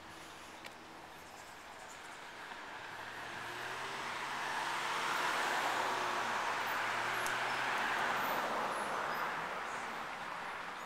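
A vehicle passing by: a broad rushing sound with a low hum that builds over a few seconds, peaks mid-way and fades away.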